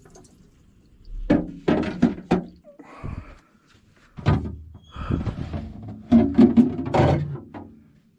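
A series of knocks and thunks with some clatter, about half a dozen over several seconds: things being handled and set down while a broken RV fridge is cleaned out.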